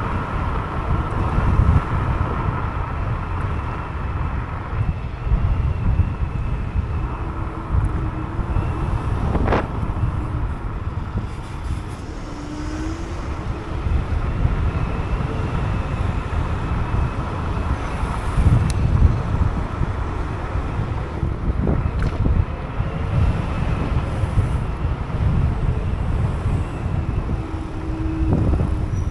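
Wind rumbling on the microphone and road noise from a Teverun Fighter 11 electric scooter being ridden, with a faint steady high whine and a few sharp clicks.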